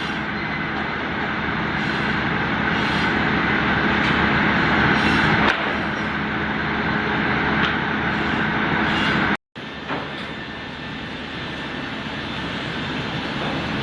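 Four-blade log sliding table saw (multi-rip gang saw) running and sawing a log, a loud steady machine noise with a constant hum beneath. It cuts out abruptly for a split second about nine and a half seconds in, then resumes.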